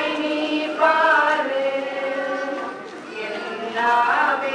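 Many voices singing a slow devotional chant together in long, held notes.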